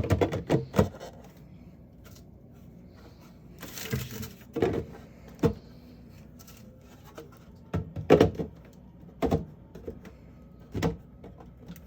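A series of separate knocks and clatters as parts and items are set into place in a new refrigerator, with a brief rustle about four seconds in.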